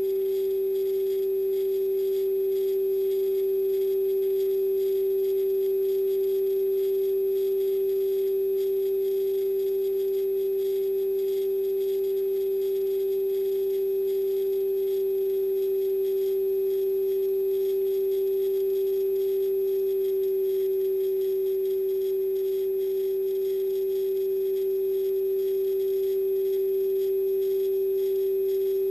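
A steady hum at one pitch, with fainter higher and lower tones, unchanging throughout. It comes from the rocket payload itself. At this altitude there is no air to carry sound, so nothing from outside reaches the camera's microphone.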